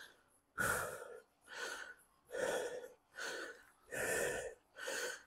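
A man breathing hard in heavy pants, about one breath a second, out of breath from a fast set of slam-ball throws.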